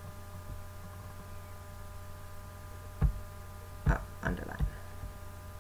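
Steady low electrical hum with a faint set of steady tones above it. About three seconds in there are a few short clicks, four in under two seconds.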